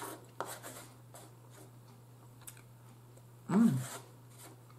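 A fork scraping and clicking on a plate as the last food is gathered up, a few light strokes, then a short hummed "mmm" of enjoyment about three and a half seconds in.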